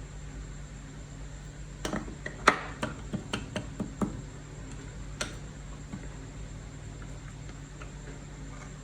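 A quick run of sharp clicks and knocks from small hard objects being handled, about eight in two seconds, then one more about a second later, over a steady low hum.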